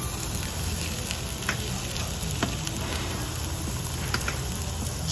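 Pork belly sizzling steadily on a tabletop Korean barbecue grill plate, with a few light clicks of metal tongs turning the meat.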